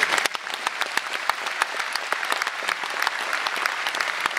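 Concert audience applauding: dense, steady clapping from many hands.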